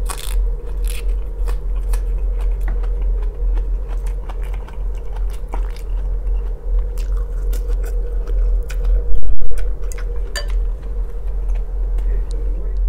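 Close-miked eating sounds: a man chewing and biting instant noodles and rye bread, with many small mouth clicks and smacks, over a steady low hum. A loud low bump about nine seconds in.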